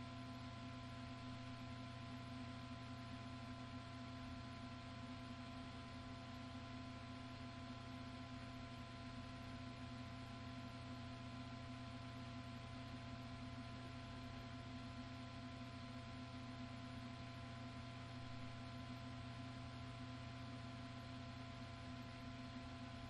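Steady, unchanging low hum with faint hiss, a few constant tones held throughout.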